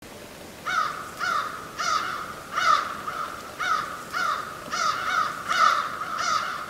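A crow cawing over and over, a run of short, harsh, downward-bending caws at roughly two a second, starting a little under a second in.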